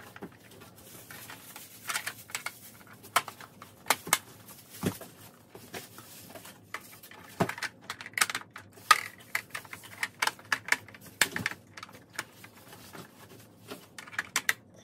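Irregular hard plastic clicks and taps as the snap-on plastic diffuser segments are pressed and clipped onto the rim of a Neewer 18-inch LED ring light.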